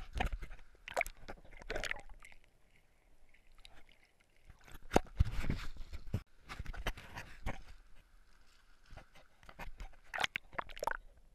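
Water sloshing and splashing around a camera held at and dipped into a river's surface, with sharp knocks of handling on the camera, coming in irregular bursts with quiet gaps between.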